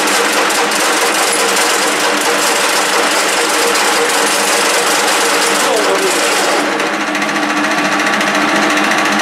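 1K62 screw-cutting engine lathe running steadily, its gears whining in several level tones over a dense mechanical hiss. About two-thirds of the way through, the high hiss falls away while the machine keeps running.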